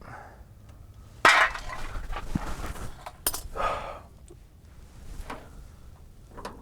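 Hands-on clatter of fuel-tank hose fittings and a clamp being forced into place: a sharp knock about a second in, scraping and rustling, a sharp click, then a few small clicks.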